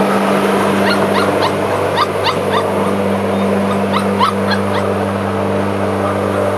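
Young puppies giving short, high, rising yips and whimpers in little clusters, around one to two and a half seconds in and again about four seconds in, over the steady hum of a lawnmower running.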